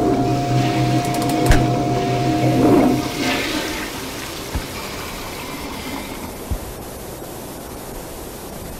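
Toilet flushing: a rush of water that swells about three seconds in and then drains away, fading slowly. A steady low hum stops as the flush peaks, a sharp knock comes about a second and a half in, and two dull thumps come later.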